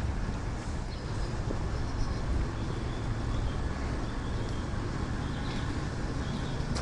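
Steady noise of a vehicle on the move, heavy in the low end, with no distinct events.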